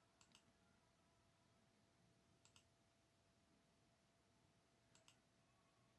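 Three faint computer mouse clicks, each a quick pair of ticks, about two and a half seconds apart, over near silence. They are the clicks that place points while drawing an arc segment in ArcMap.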